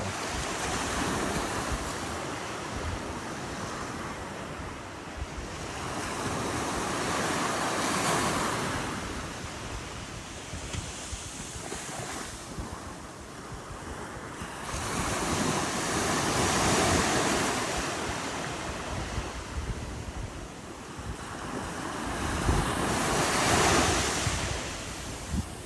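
Sea waves breaking and washing up a beach, the surf swelling and fading in slow surges roughly every seven to nine seconds, with wind buffeting the microphone.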